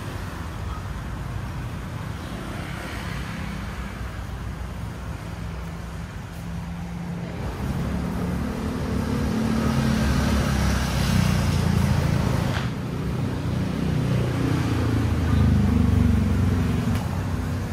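Road traffic passing by, with a motor vehicle's engine rumbling low and growing louder about halfway through, then staying loud.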